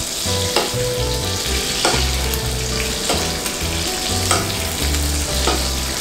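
Rack of lamb sizzling in hot oil in a stainless steel frying pan while a spoon scoops the oil and bastes it over the meat, with a few light clicks of the spoon against the pan.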